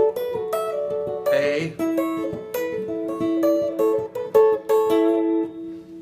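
Electric guitar played fingerstyle: triad shapes and single notes through G, D and A chords, with notes plucked in turn and left to ring together. A short scratchy string noise comes about a second and a half in.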